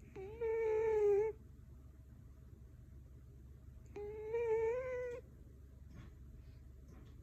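Scottish Fold cat snoring: two drawn-out, even-pitched snores about four seconds apart, each lasting a little over a second.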